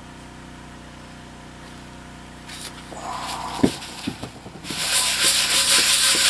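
Paper towel rubbed hard over a cast iron frying pan, wiping off loosened rust. The rubbing starts just before the end, after a quiet room hum and a single knock about halfway through.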